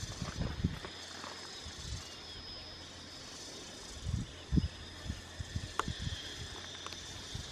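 Small twig-and-bamboo campfire with soft knocks and rustles as bamboo skewers are shifted among the embers, about half a second in and again around four seconds in, and one sharp crackling pop near six seconds. A steady high-pitched background drone runs underneath.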